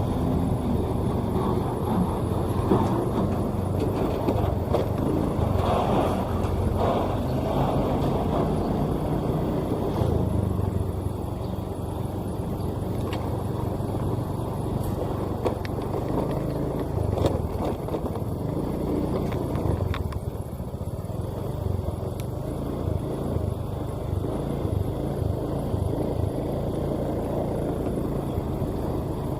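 Diesel engine of a Sakai asphalt paver running steadily as the machine drives, a low continuous drone that eases slightly after about ten seconds.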